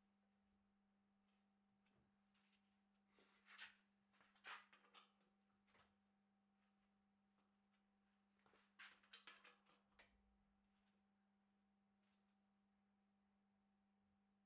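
Faint clicks and rattles of hands working on the bicycle, in two short spells, over a steady low electrical hum.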